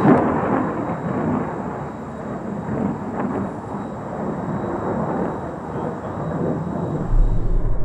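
Distant rumbling crackle of a ship-launched missile's rocket motor, starting suddenly and rolling on like thunder.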